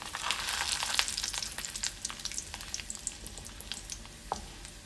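Mustard seeds and urad dal frying in hot sesame oil in a kadai: a sizzle with many sharp pops as the mustard seeds splutter, densest in the first couple of seconds and thinning out toward the end.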